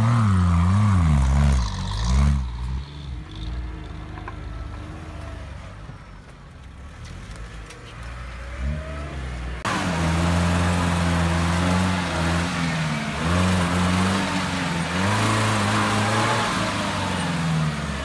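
Nissan Patrol's engine revving, rising and falling, as it climbs a steep grassy bank, then dying away. About ten seconds in, a UAZ-469's engine cuts in loud and held at high revs as it churns through deep mud, with spinning wheels throwing up spray.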